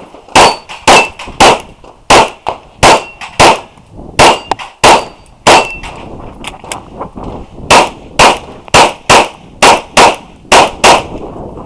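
9mm Glock 34 pistol firing a rapid string of about sixteen shots, mostly in quick pairs, with a pause of about two seconds in the middle. A few shots are followed by a brief metallic ring from steel targets being hit.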